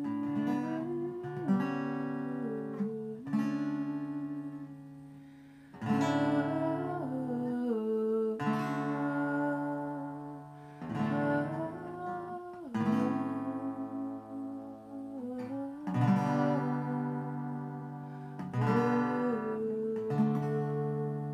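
Guitar strummed slowly, one chord at a time: about ten chords, each struck and left to ring and fade before the next, every two to three seconds.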